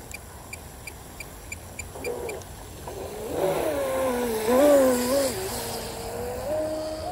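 Brushless electric motor of a Deltaforce 35 RC speedboat whining as it runs laps, its pitch rising and falling with the throttle, over the hiss of the hull and spray across the water. A faint, even ticking runs through the first two seconds.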